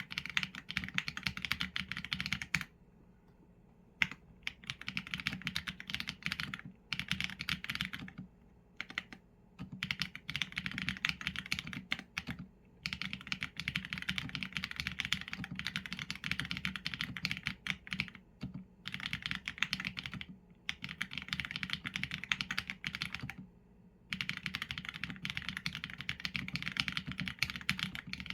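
Typing on a Qsenn A75 mechanical keyboard with Leobog Graywood v4 linear switches and PBT keycaps: quick runs of keystrokes broken by short pauses, the longest a little over a second near the start.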